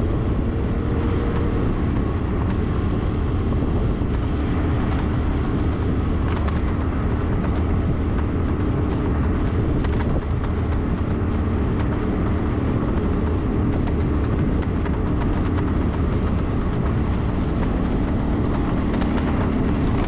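Motor scooter running at a steady cruise, its engine a constant hum under the rush of road and wind noise.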